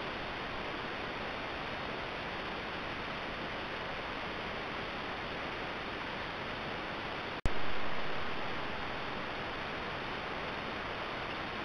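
Steady hiss from a trail camera's built-in microphone, with a faint high-pitched tone in it. About seven and a half seconds in there is a sharp click where one recording ends and the next begins, after which the hiss is louder and settles back down over a couple of seconds.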